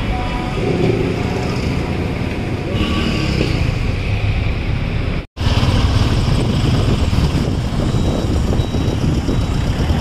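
Busy street traffic noise. A sudden cut about five seconds in leaves a brief gap, and then comes louder, denser road noise from riding through traffic.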